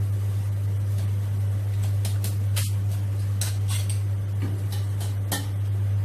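Metal tongs and a wire mesh strainer clinking against a wok and a steel pot as deep-fried pork pieces are lifted out of the oil: several sharp, separate clinks over a steady low hum.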